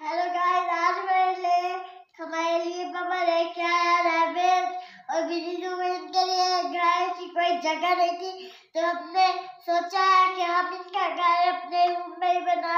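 A child's singing voice: a song sung in phrases of a few seconds each, with short breaks between them.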